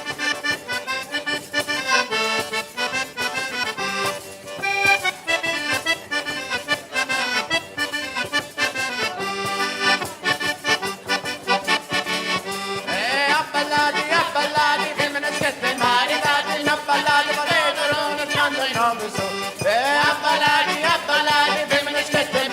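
Accordion playing a lively traditional Italian folk tune, with no singing. About halfway through, a second melody line with bending, wavering pitch comes in over it.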